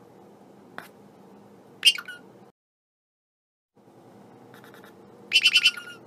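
Indian ringneck parakeet giving short, high calls: a small one, a loud one about two seconds in, then a quick run of several loud calls near the end. A faint steady room hum lies underneath, cut by about a second of dead silence midway.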